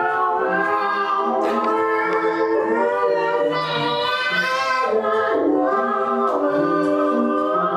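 Vocal music: several voices singing long held notes together in harmony, with no instruments standing out.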